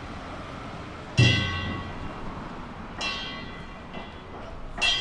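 Danjiri festival cart's metal gong struck slowly: three separate ringing strikes about two seconds apart. The first and loudest comes with a low drum beat.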